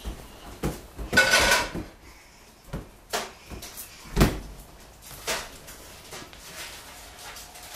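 Scattered knocks and thumps of a toddler playing with a latex balloon on a hardwood floor. There is a louder, longer scuffle just over a second in and a heavy thump about four seconds in.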